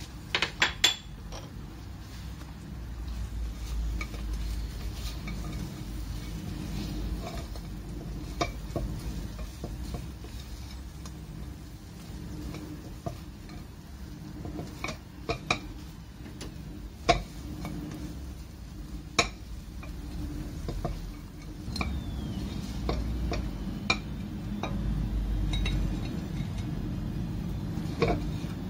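Utensils clinking now and then against cookware while food is stirred or handled, over a steady low rumble.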